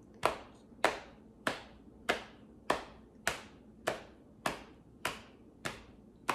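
Hands patting the thighs to keep a steady beat, about ten even pats at a little under two per second.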